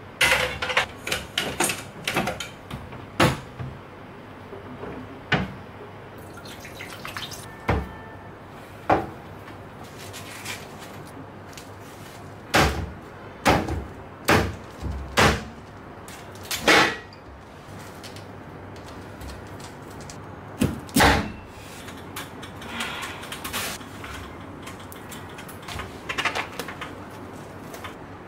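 Kitchen cooking-prep clatter: a series of sharp knocks and taps as cookware is set onto an electric hot pot and a knife strikes a plastic cutting board while cutting corn off the cob. The clusters come near the start, in the middle and about three-quarters through.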